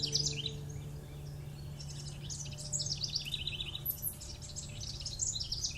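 Songbirds singing, with several bursts of rapid, high chirping trills. A steady low hum runs underneath.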